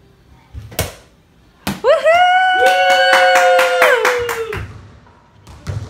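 Two sharp thuds, then two people cheering with a long held 'whoo' on a steady pitch, the second voice joining a moment later, over quick rapid clapping, as the eyes-closed between-the-legs trick shot goes in. Another thud near the end.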